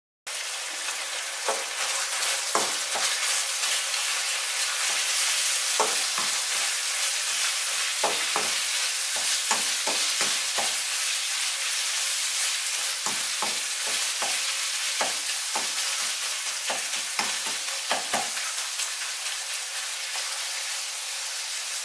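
Minced beef sizzling steadily as it fries in butter and oil in a pan, with scattered knocks and scrapes as a plastic mince masher presses and breaks up the meat.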